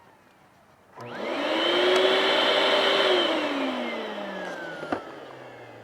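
Hoover vacuum cleaner switched on: its motor spins up with a quickly rising whine, runs briefly at full speed, then is switched off and winds down with a slowly falling whine.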